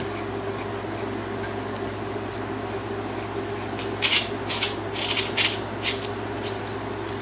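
Grooming brush dragged through a Belgian Malinois's shedding coat, making about five quick, scratchy strokes in a burst a little past halfway, over a steady low hum.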